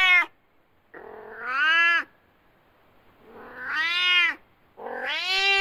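Domestic cat meowing: the end of one meow, then three more long, drawn-out meows with pauses between them, each rising and then falling in pitch.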